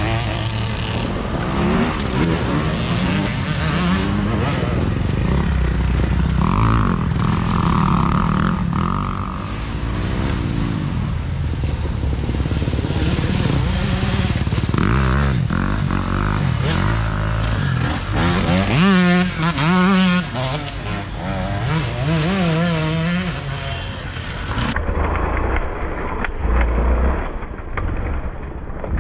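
Off-road dirt bike engines running and revving as riders race through a tight dirt corner one after another. The revs rise and fall repeatedly about two-thirds of the way through as a bike works its way through the turn.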